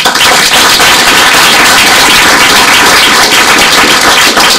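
Audience applauding: dense, steady clapping from a hall full of people.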